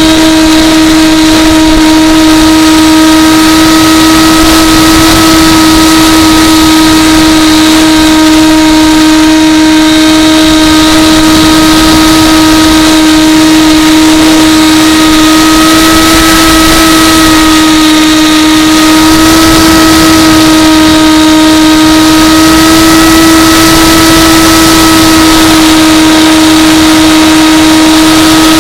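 Brushless electric motor and propeller of an AXN Floater RC plane running at steady throttle: a loud, even whine holding one pitch, wavering slightly up and down in the second half.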